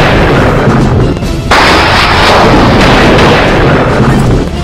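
Thunder sound effect: a loud crash fading out, then a fresh thunderclap about a second and a half in that rumbles and slowly dies away.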